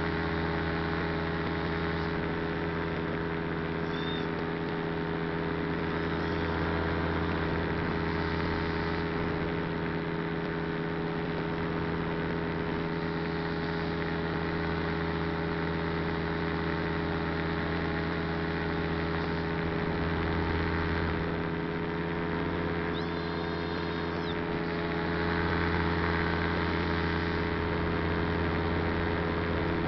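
Steady hum of a small aircraft's motor running at constant speed, over a constant rushing hiss.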